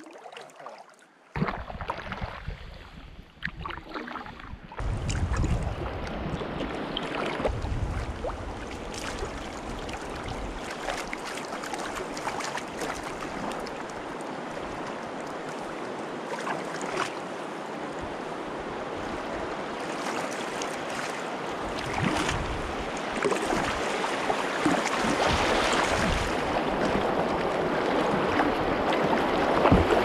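River water rushing and splashing around the bow of a sea kayak, a steady hiss that slowly gets louder as the kayak runs into white-water rapids near the end.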